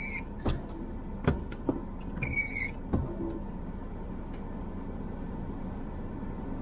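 Two short, high electronic beeps about two and a half seconds apart, with a few sharp knocks and clicks in between, over a steady low hum inside a car.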